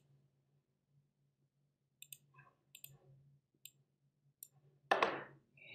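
Computer mouse clicks: about half a dozen quiet, sharp clicks from about two seconds in, some in quick pairs, over a faint steady low hum. A short, louder breath comes near the end.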